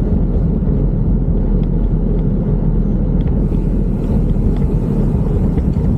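Steady rumbling wind noise on the microphone of a bicycle rider on the move, mixed with road noise.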